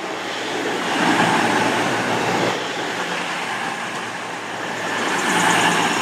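Class 220 Voyager diesel multiple unit running into the platform: its underfloor diesel engines and wheels on the rails make a steady rumble with a low hum, swelling about a second in and again near the end.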